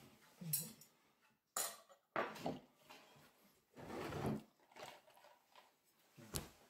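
Metal cutlery clinking and scraping against plates and a gratin dish while food is served at the table, in a handful of separate knocks and clatters; the sharpest knock comes near the end.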